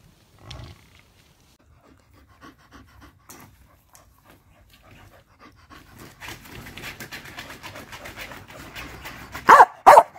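Dog panting rapidly and steadily, then two loud barks near the end.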